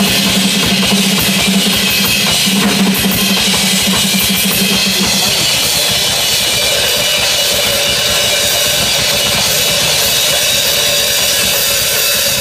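Live drum solo on a full drum kit: fast, dense strokes on bass drum and snare with cymbals ringing over them.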